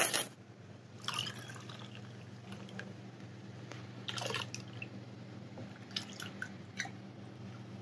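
Activated wine yeast starter being poured from a glass bowl into crushed red grape must: a few scattered drips and small splashes.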